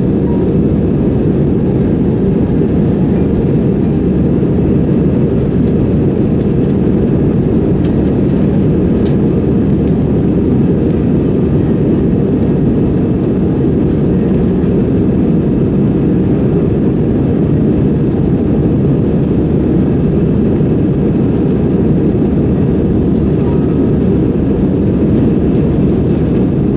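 Steady cabin noise of an Airbus A320-family jet airliner in its climb after take-off: an even, low rumble of engines and rushing air, heard from inside the cabin.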